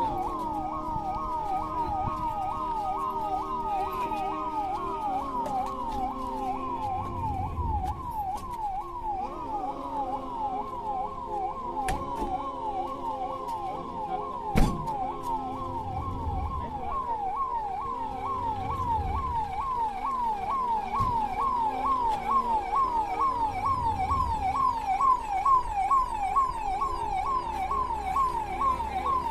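Electronic police siren wailing in a fast yelp, its pitch sweeping quickly up and down several times a second without a break. A single sharp knock stands out about halfway through.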